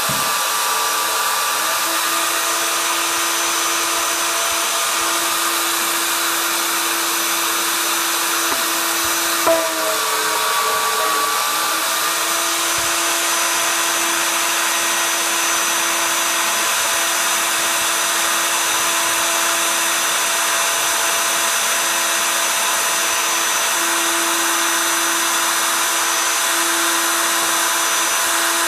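Bosch plunge router running steadily at full speed, its bit cutting into wood flooring, with a brief louder blip about nine and a half seconds in.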